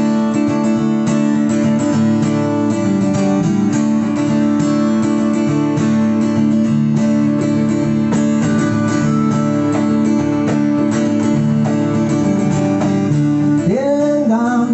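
Live band playing a song's intro: strummed acoustic guitar with electric bass and electric guitar. A man's singing voice comes in near the end.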